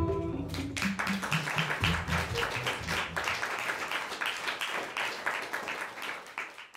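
Guitar music ends on its last notes, then an audience applauds, the clapping fading away near the end.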